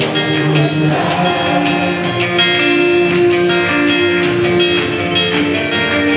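Live band music with guitar and sustained chords, a voice singing along.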